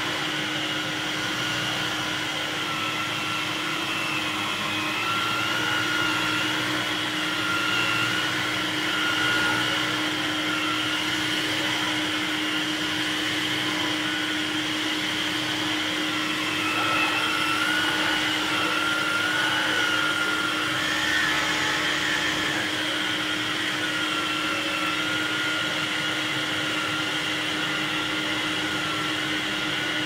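Aerus (Electrolux) Guardian C135B cylinder vacuum cleaner running steadily with its power head on carpet: a constant hum under a high motor whine that wavers slightly in pitch.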